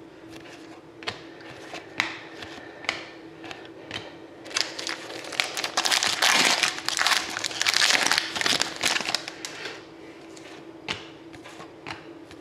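A hockey card pack's foil wrapper crinkling as it is torn open, loudest in the middle. Before and after it come single clicks, about one a second, as cards are flicked through by hand.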